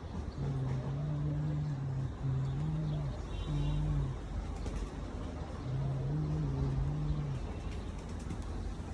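Domestic pigeons cooing: a run of low, drawn-out coos about a second each, some bending gently in pitch, with a few faint chirps.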